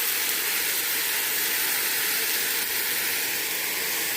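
Pan of battered salmon bites sizzling steadily in hot oil, with the sauce just poured in hissing as it cooks off.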